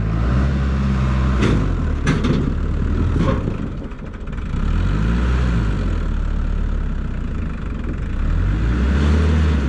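Blue farm tractor's diesel engine running under load and revving up and down as it manoeuvres with its trailer on a steep gravel slope. A few sharp knocks sound in the first few seconds.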